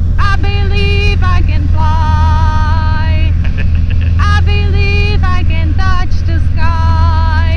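Light aircraft's piston engine and propeller running steadily in flight, a loud constant drone heard from inside the cockpit. A melody of held, wavering notes runs over it.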